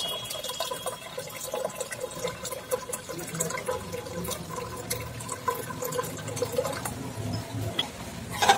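Water pouring in a steady stream from a kettle into a pressure cooker already full of water and soaked grains, splashing into the liquid. Near the end there is a sharp clink of a metal ladle against the pot.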